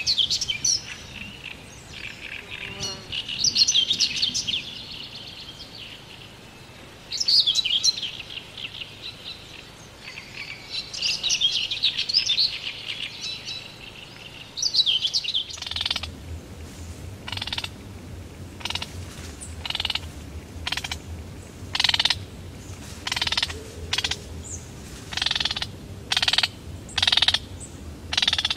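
Small birds singing in bursts of quick warbling chirps, each a couple of seconds long. About halfway through the sound changes abruptly: a low steady hum sets in under a series of short croaks, about one a second, from frogs calling.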